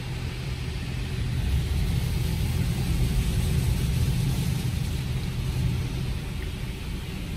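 Touchless car wash's high-pressure water jets spraying over the car, heard from inside the cabin as a steady rumble with a hiss. It swells about a second and a half in and eases off near the end.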